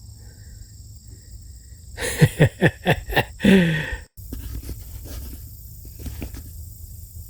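A person's voice in a quick run of short, breathy, pitched bursts for about two seconds, starting about two seconds in. After a sudden break it gives way to a steady low rumble with a few faint ticks.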